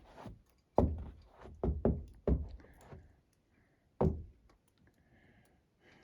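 Hiking boots stepping on wooden shelter floorboards: about five hollow knocks at uneven intervals.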